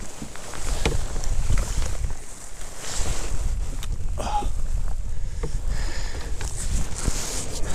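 Wind rumbling on the microphone over the sound of water around a kayak, with a few light knocks and a short high chirp about four seconds in.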